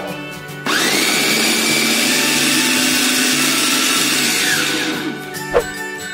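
Electric blender grinding pieces of white bread into crumbs: the motor starts suddenly and spins up to a steady whine, runs for about four seconds, then winds down with a falling pitch.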